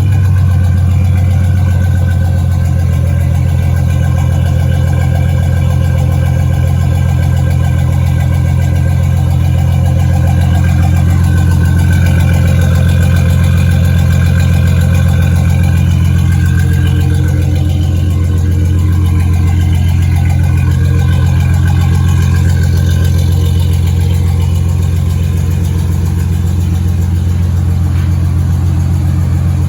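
2003 Chevy Silverado's engine idling steadily just after starting, now running on a newly fitted replacement fuel pump.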